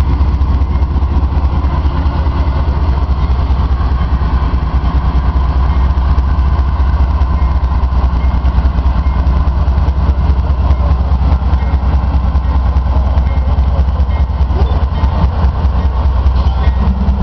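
Freight train's lead diesel-electric locomotives approaching and passing close by, engines running with a steady low rumble.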